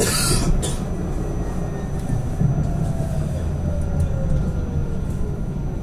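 Alstom Citadis 302 tram running, heard from inside the passenger cabin: a steady low rumble, a brief hiss at the start, and a faint whine sliding down in pitch as the tram slows.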